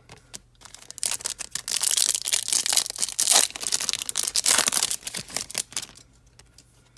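Crinkling and tearing of a foil trading-card pack wrapper: a dense, crackly rustle full of small clicks that starts about a second in and dies away after about five seconds.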